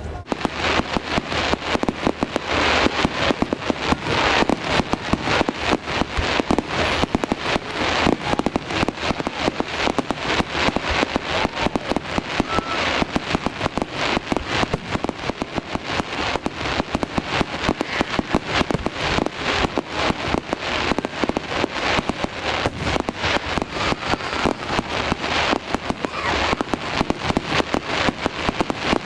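Fireworks display: a dense, continuous barrage of bangs and crackles, many a second.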